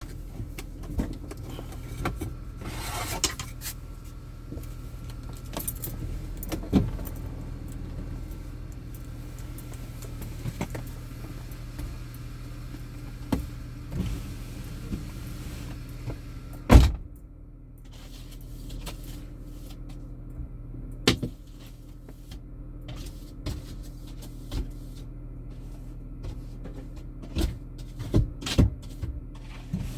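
Inside a moving car's cabin: a steady low engine and road hum, with scattered clicks and rattles and one loud knock about seventeen seconds in.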